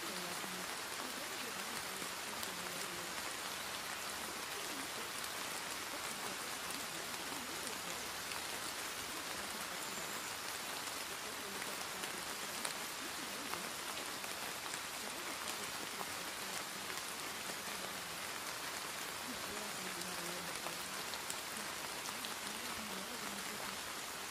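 Steady rain sound, an even hiss with fine scattered drop ticks, used as the masking track of a subliminal. A faint, indistinct voice murmurs beneath it now and then, which would be the buried affirmations.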